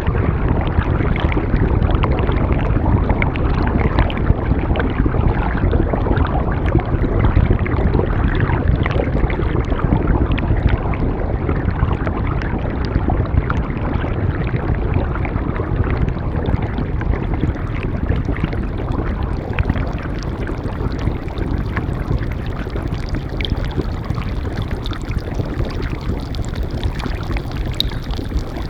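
Flowing stream water: a steady, dense rush with fine splashing.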